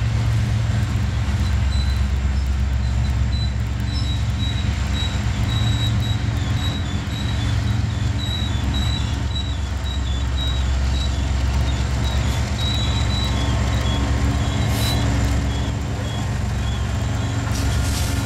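Freight train rolling past with a steady low rumble of wheels on rail and a few steady low engine tones, and a run of short, high-pitched squeaks through the middle.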